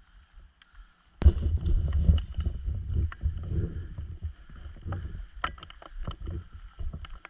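Footsteps and rustling through dry fallen leaves and twigs, with movement noise close to a body-worn camera. A sharp click about a second in, then an uneven low rumble of movement with scattered snaps.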